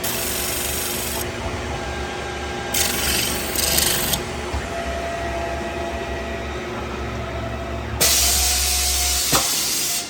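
CNC metal-spinning lathe running with a steady low motor hum, while the forming roller rubs and scrapes against the spinning sheet metal in three harsh passes. The hum stops with a click just before the end.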